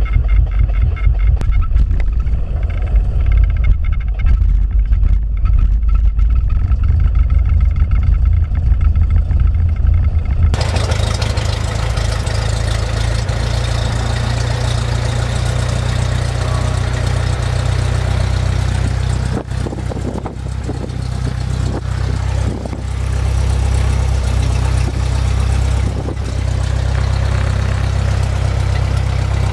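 Cessna 172P's Lycoming four-cylinder engine idling on the ground before taxi, heard inside the cabin. It throbs with a strong low pulse at first, then about ten seconds in becomes a steadier drone with more hiss.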